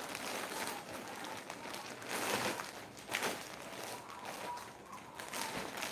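Clear plastic garment bags rustling and crinkling as they are handled, with a couple of louder crackles about two and three seconds in.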